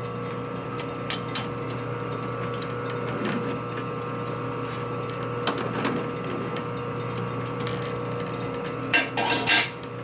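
Metal lathe running with a steady hum, while metal tools and parts clink and tap now and then, ending in a quick cluster of louder knocks near the end.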